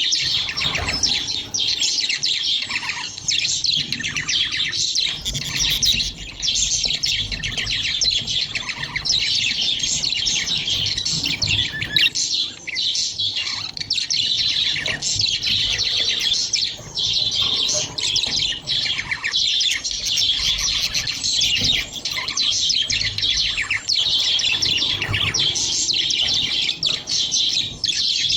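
A flock of budgerigars chattering: constant rapid chirps, twitters and warbles from many birds at once, with no pauses.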